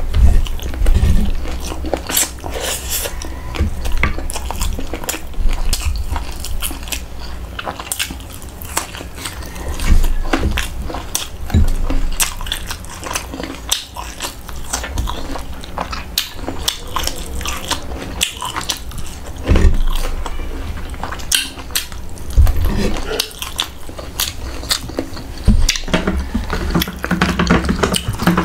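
Close-miked eating by hand: chewing and wet mouth smacks, with many short clicks and small knocks of fingers and food against the table and bowl.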